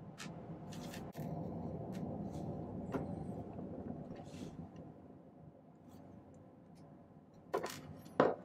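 Scattered light clicks and taps of chain-nose pliers and small silver bezel rings being handled on a workbench, over a steady background hum.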